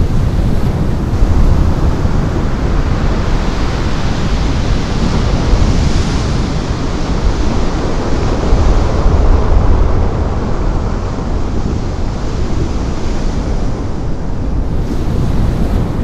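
Giant ocean wave breaking and its whitewater rushing, a continuous noise with a deep rumble, mixed with heavy wind buffeting on the microphone.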